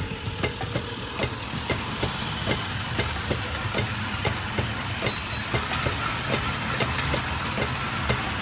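Battery-powered Plarail toy Shinkansen (E2 and E3 sets coupled) running on plastic track: a steady small-motor hum with rapid clicking, about three or four clicks a second, as the cars roll over the track joints.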